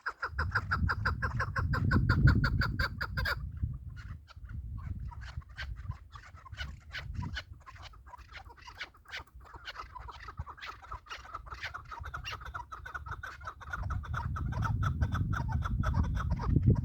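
Chukar partridge calling: a long, rapid run of clucking notes that pauses briefly and starts again, over a low rumble.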